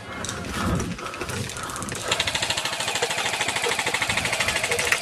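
Airsoft gun firing a long full-auto burst, a fast even rattle of shots starting about two seconds in and still going at the end.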